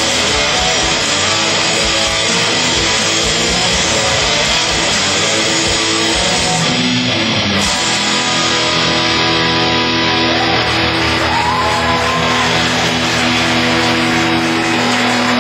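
Live heavy metal band with distorted electric guitars and drums, played loud. About eight seconds in, the dense playing gives way to long held notes ringing on.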